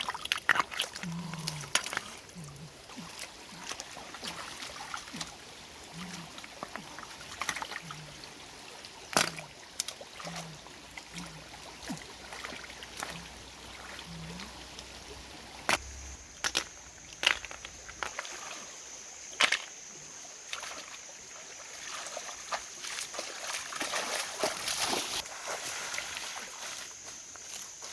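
Water sloshing and splashing, with scattered clicks and knocks. From about halfway through, a steady high-pitched whine joins in.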